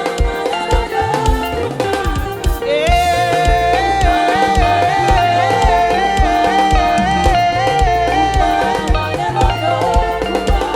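Live gospel worship band playing an upbeat African-style praise song, with bass and drums keeping a steady groove. About three seconds in a lead melody line enters and holds a rocking, wavering tune until near the end.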